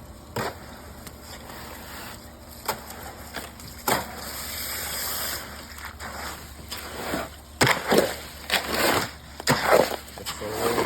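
Irregular sharp knocks and clatters from fence-building work: a few single knocks, a brief hiss near the middle, then a busier run of knocks and rattles near the end.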